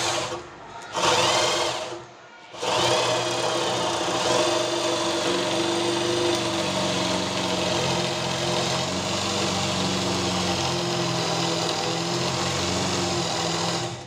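Handheld electric drill boring into the wooden edge of a door, cutting the row of holes for a lock mortise. Two short bursts, then it runs steadily under load from about two and a half seconds in.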